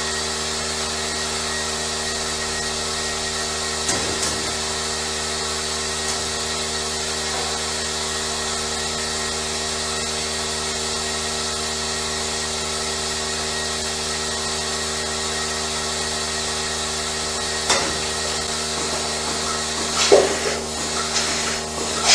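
A machine with a small motor running steadily, a constant hum with several fixed tones, with a few knocks and clatters near the end.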